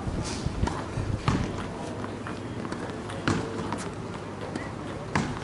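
Tennis balls knocking sharply on a hard court a few times, a second or two apart, with shoe scuffs over a steady low background noise.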